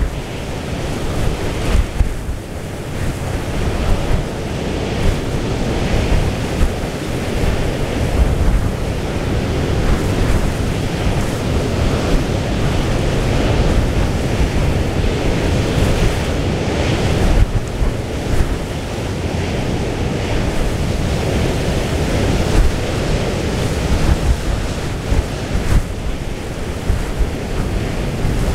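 Storm wind buffeting the microphone in irregular gusts over the steady rush of a rough, breaking sea.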